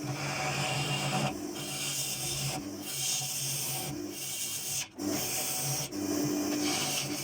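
Wood lathe running with its steady motor hum while a cutting tool or abrasive works the spinning maple. The rough working noise breaks off briefly about every second.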